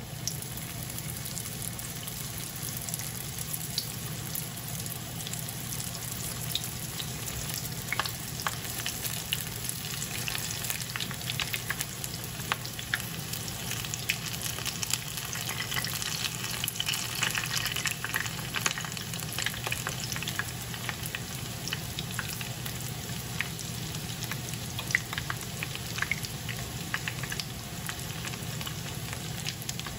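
Small Vietnamese spring rolls (ram) frying in hot corn oil in a nonstick pan: a steady sizzle with many small pops and crackles.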